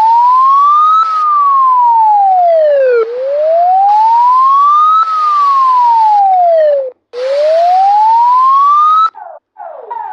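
Emergency-vehicle siren in a slow wail, its single tone rising and falling about every four seconds over a steady hiss. It cuts out briefly past the middle, then resumes, and near the end switches to a quick run of short falling sweeps.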